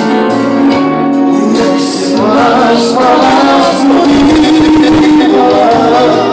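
Live band music on electronic keyboard and bass guitar. A man starts singing into a microphone about two seconds in, his voice wavering in pitch over the accompaniment.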